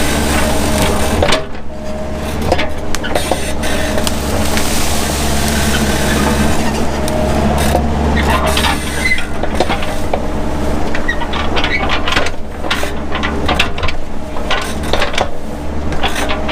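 Mini excavator engine running steadily under work, with many irregular clicks and knocks over it.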